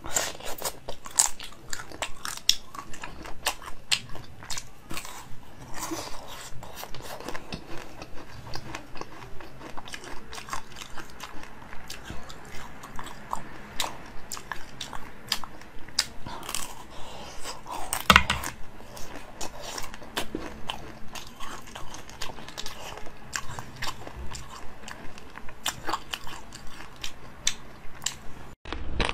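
Close-up biting and chewing of a watermelon-shaped jelly dessert: sharp wet clicks and crunches come a few times a second, with one much louder bite about 18 seconds in.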